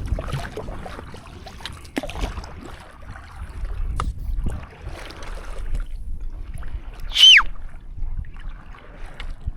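Stand-up paddleboard paddle strokes splashing and trickling in seawater, with a low wind rumble on the microphone and a few sharp knocks. About seven seconds in, a short high squeal falls quickly in pitch and is the loudest sound.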